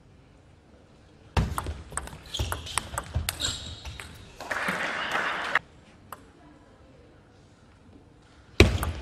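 Table tennis rally: the ball clicks in quick succession off the bats and the table for about three seconds, starting about a second and a half in. A burst of noise lasting about a second follows as the point ends. Near the end, sharp hits start again as the next point begins.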